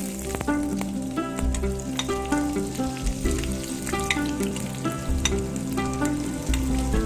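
Sliced onions sizzling and crackling as they are spooned into hot oil in a frying pan, with background music of plucked notes.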